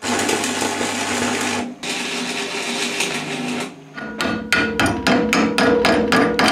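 Electric arc welding on steel: a steady hiss with a low hum in two runs of under two seconds each, split by a short break. About four seconds in, a hammer starts striking the fresh weld on the steel bar, about four blows a second.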